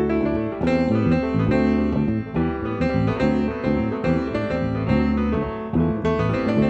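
Instrumental break of a song: a piano-toned keyboard plays a run of quick melody notes over low sustained notes, with no singing.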